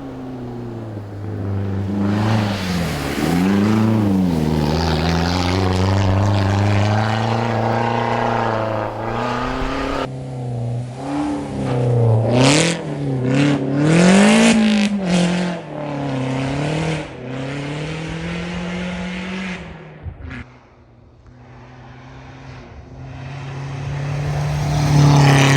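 Competition car engines revving hard on a snow and ice drift course, pitch climbing and falling over and over as the throttle is worked. The sound changes abruptly about ten seconds in, drops away around twenty seconds, then a car's engine grows louder again near the end.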